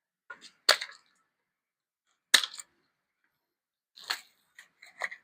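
Zip ties on a bike's packing being cut: a few sharp snaps about a second or more apart, with fainter ticks between.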